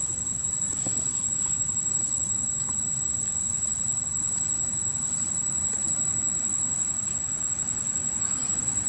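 Steady high-pitched drone of an insect chorus over a low rumble of outdoor background noise. No monkey calls.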